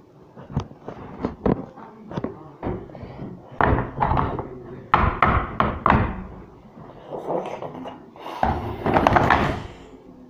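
Large plastic toy building blocks being knocked over and clattering onto a tabletop: a string of sharp knocks, with busier bursts of clatter near the middle and again near the end.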